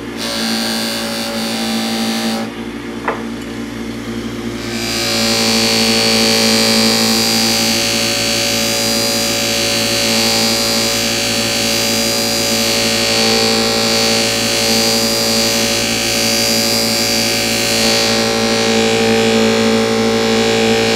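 Belt-driven buffing arbor running with a steady electric-motor hum. About five seconds in, the steel chip breaker of a hand plane is pressed against the spinning soft sewn-cloth buffing wheel, adding a louder steady hiss as its curved edge is polished toward a mirror finish.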